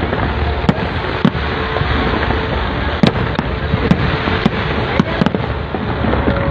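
Aerial fireworks display: a dense, continuous crackle and rumble with sharp bangs of bursting shells every second or so, the loudest about three seconds in.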